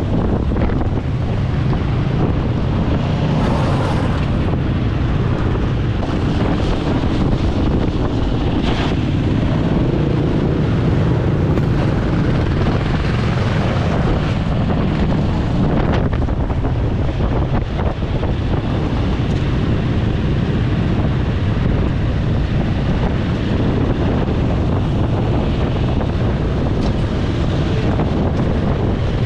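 Steady wind noise buffeting the microphone on a moving motorcycle, mixed with engine and road noise.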